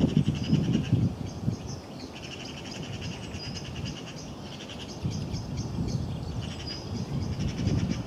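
Small songbirds singing fast, rattling trills, several at once at different pitches, with a gusty low rumble underneath that is strongest near the start and picks up again about halfway through.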